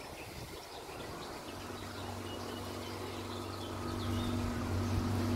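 A steady low machine hum sets in about a second and a half in and grows louder toward the end. Small birds chirp over it.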